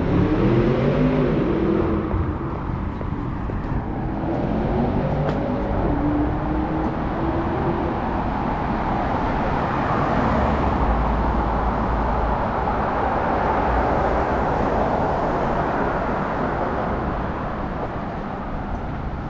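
Cars passing on a city street. In the first several seconds engine tones rise and fall as vehicles accelerate by, then tyre and engine noise swells as a car passes close, about halfway through, before easing off.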